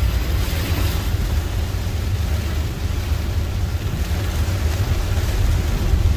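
Steady road and rain noise heard inside a car driving through a heavy downpour: tyres on the flooded, wet road and rain on the car body, over a deep, even rumble.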